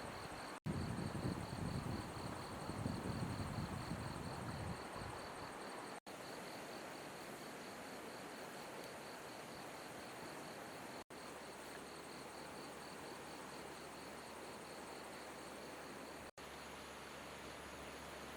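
Crickets chirping in a steady pulsing trill over the even rush of flowing river water. A low rumble sounds for a few seconds near the start.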